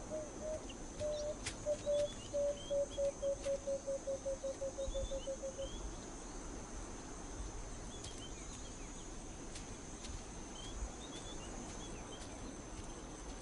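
A bird calls a series of short low hoots that come faster and faster and drop slightly in pitch, ending about six seconds in. Faint high chirps and a steady high insect hum run underneath.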